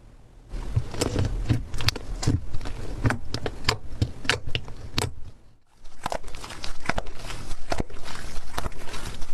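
Slime being squeezed and kneaded by hand, giving a run of irregular sticky crackles and pops. The sound breaks off briefly about halfway through, then carries on.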